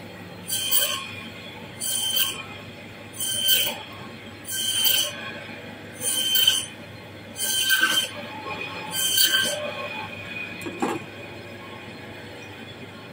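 Meat band saw cutting through a block of frozen fish: seven high-pitched cuts, each about half a second long and about a second and a half apart, over the steady hum of the saw running. A single sharp click comes near the end.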